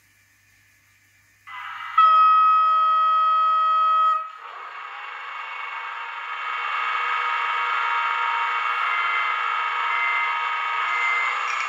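Digital sound of an H0 model locomotive: a horn blast lasting about two seconds, starting a little after the first second and a half, followed by a steadier, noisier tone that swells slightly.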